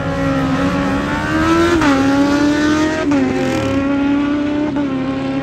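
Drag-racing motorcycle accelerating hard down the strip, its engine note climbing and dropping at upshifts about two and three seconds in and again near the end.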